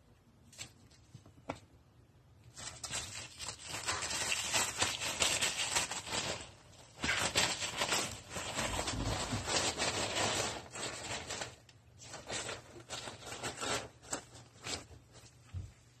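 Tissue paper crinkling and rustling as a fox squirrel drags and tugs at it. Long spells of rustling in the middle, then shorter crackly rustles near the end.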